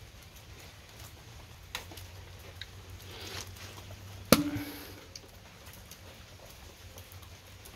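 Light clicks of a knife cutting avocado, then one sharp metallic clank about four seconds in as the knife hand knocks against a metal bowl of avocados, ringing briefly. A steady low hum runs underneath.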